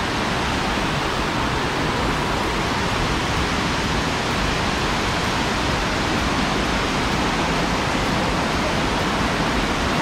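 Waterfall whitewater rushing over rocks: a loud, steady, even rush with no breaks.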